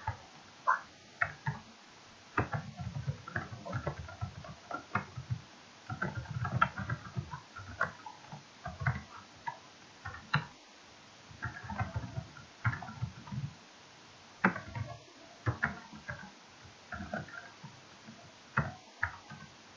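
Computer keyboard being typed on: irregular bursts of keystroke clicks with short pauses between them.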